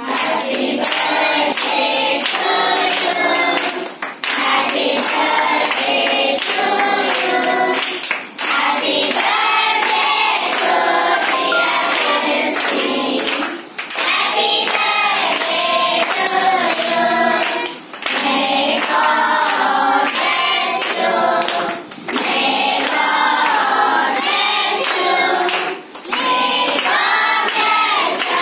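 A group of children singing a birthday song together in unison, in phrases with short breaks about every four seconds, with hand claps keeping time.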